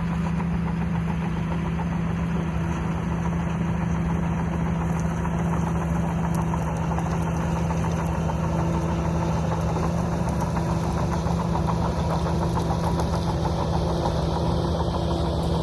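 Shantui DH17C3 bulldozer's diesel engine running at a steady speed with an even hum, no revving.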